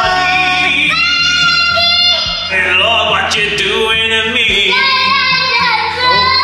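Song playing, a sung vocal line of held, wavering notes over a steady bass.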